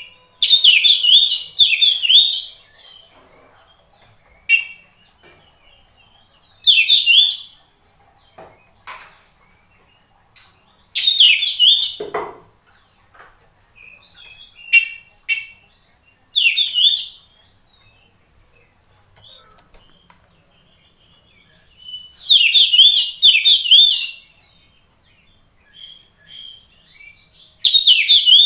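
Oriental magpie-robin (kacer) in full song: loud phrases of rapid, sweeping whistled notes, given in bursts of up to about two seconds with pauses of a few seconds between them. Faint clicks fall between the phrases.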